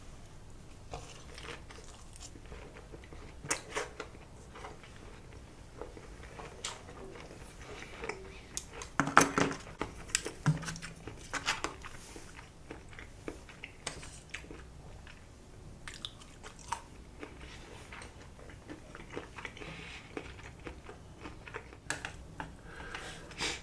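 A person chewing and biting sushi close to the microphone, with wet mouth sounds and irregular small crunches. The loudest burst of crunching comes about nine seconds in.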